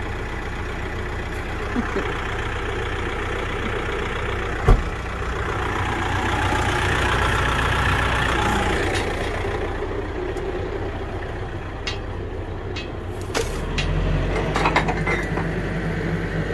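Kioti tractor's diesel engine idling steadily, with a single sharp knock about five seconds in and its low hum growing stronger near the end.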